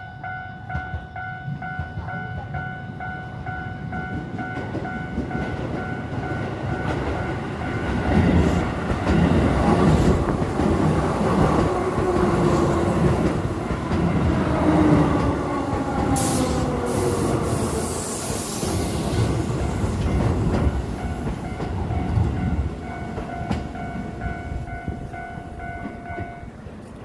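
Japanese level-crossing warning bell ringing in a steady repeating pattern, then a train passes through loudly for about fourteen seconds, its wheels rumbling with sliding squeals. The bell is heard again after the train and stops just before the end.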